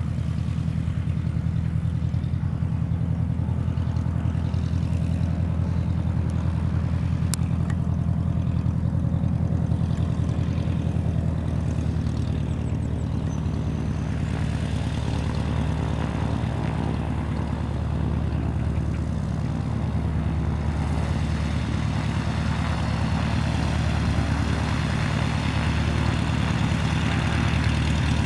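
Propeller plane's piston engine running steadily with a low drone, a broader rushing noise building in from about halfway.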